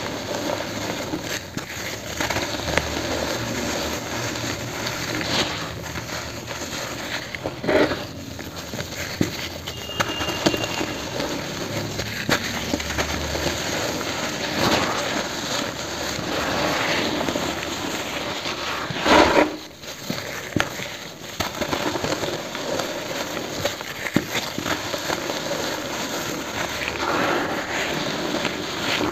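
Lumps of pure cement, some tinted green, crushed and crumbled in gloved hands: a steady gritty crunching and crackling as the powder and grit pour down, with louder crunches about a quarter of the way in and again about two-thirds through.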